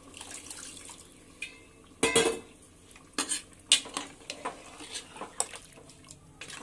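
Steel ladle stirring beef pieces in water in an aluminium pressure cooker, clinking and scraping against the pot in irregular knocks, the loudest about two seconds in.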